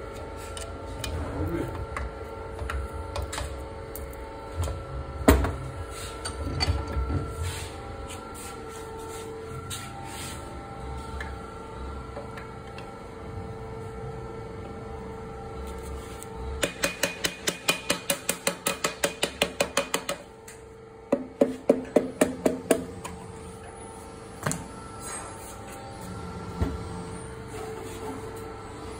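Hand tools on metal engine parts during an engine rebuild: scattered knocks, then two runs of quick, even strikes, about four a second, past the middle.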